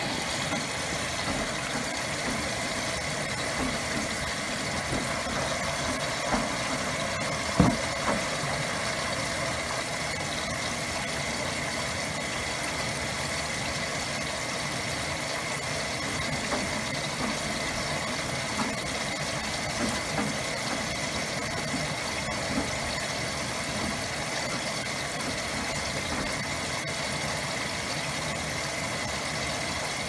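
Maytag Commercial Technology front-load washer (MHW5630HW) running its wash cycle, the drum tumbling a load of plushies: a steady machine hum with a faint high whine and small knocks as the load turns over, and one louder thump about seven and a half seconds in.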